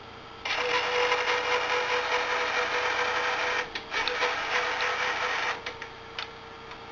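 Gear motors of a homemade azimuth-elevation antenna rotor running with a steady whir that starts about half a second in, breaks off briefly just before four seconds, runs on and stops a little before the end, followed by a couple of short blips.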